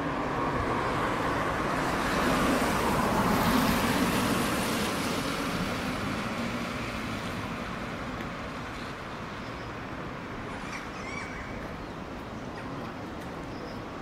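A vehicle passing on a nearby road: its tyre and engine noise swells to a peak about four seconds in, then slowly fades. A few faint short bird chirps come near the end.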